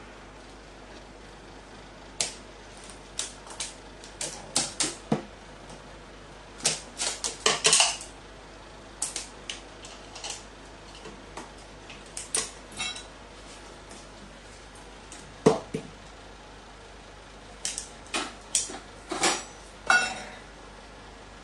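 A carrion crow's beak pecking and tapping at plastic cups, a steel bowl and a metal-topped table: irregular sharp clicks and knocks, some in quick runs, with a few louder raps about a third of the way in and about two thirds of the way in.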